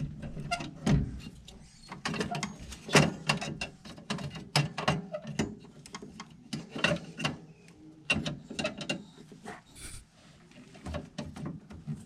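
Irregular clicks, taps and knocks of metal parts and hand tools being handled as a component is worked back into place in a gas heating unit.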